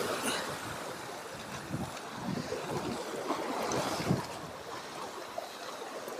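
Small ocean waves washing and sloshing against shoreline rocks, with wind noise on the microphone; the wash swells a little around the middle.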